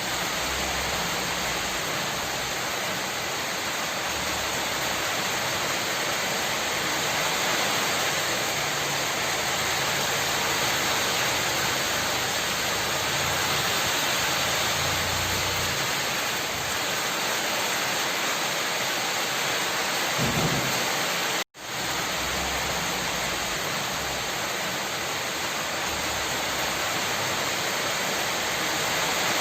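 Steady, heavy rain falling, with a low rumble that comes and goes underneath. The sound cuts out completely for an instant about two-thirds of the way through.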